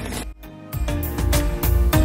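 Background music with a steady beat, coming in after a brief dip about half a second in.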